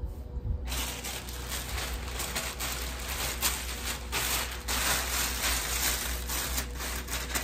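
Plastic thermal hair cap crinkling and rustling as it is handled and pulled on over the hair. The crackling starts about a second in, over a steady low hum.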